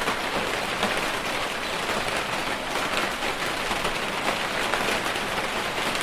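Steady rain falling outside a house, a continuous even hiss with many individual drop hits.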